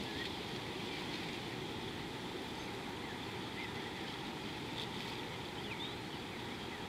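Steady wind-like outdoor noise with a few brief, faint bird chirps scattered through it.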